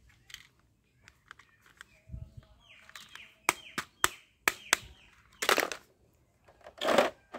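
A plastic toy gun being handled, with a quick series of five or so sharp clicks about halfway through and two longer rustling, rattling bursts near the end.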